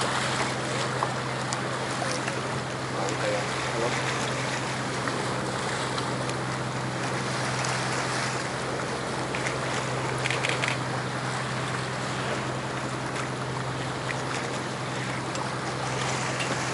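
Steady low drone of a boat's engine, with wind and the rush of water passing the hull.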